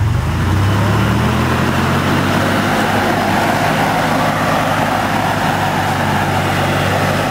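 A Toyota pickup's engine revs up suddenly and is held at a steady high pitch under load as the truck crawls up over a rock ledge, with tire and rock noise beneath it.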